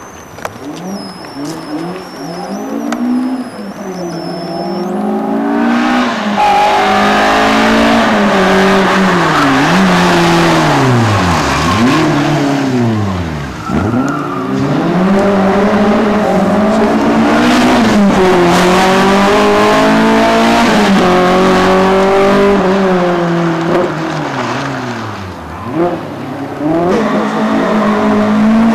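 Peugeot 106 rally car's four-cylinder petrol engine, driven hard: the revs climb and drop again and again as the car accelerates, changes gear and lifts off for corners. It starts faint and becomes loud about five seconds in as the car comes close.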